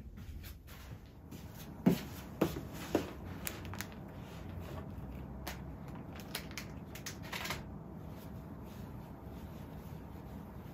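Towels and a canvas tote bag being handled and packed, with soft fabric rustling. Three light knocks come about two to three seconds in, and a brief louder rustle comes past the middle.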